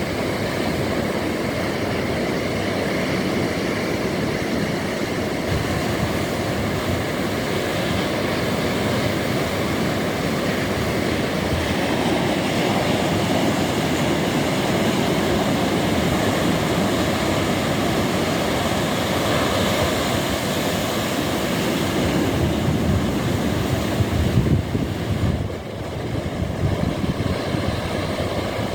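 Ocean surf: a continuous rushing wash of waves, swelling louder about twenty-four seconds in and then briefly falling away.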